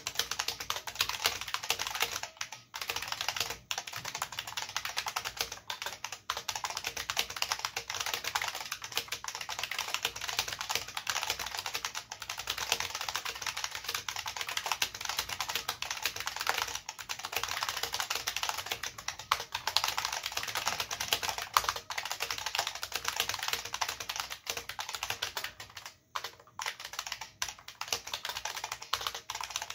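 Fast continuous typing on an IBM Model F122 keyboard's capacitive buckling-spring switches with PBT keycaps, a dense stream of key clacks and spring pings broken by short pauses about two seconds in and near the end.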